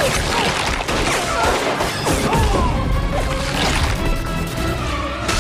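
Action-film soundtrack: music mixed with repeated smashing and crashing impacts.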